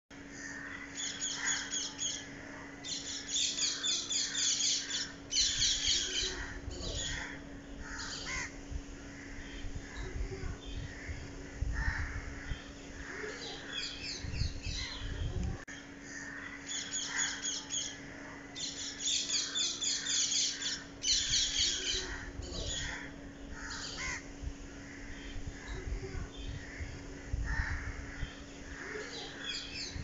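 Crows cawing and parrots screeching in bouts of harsh calls, over a faint steady hum and a few low rumbles. The same run of calls seems to come round again about halfway through.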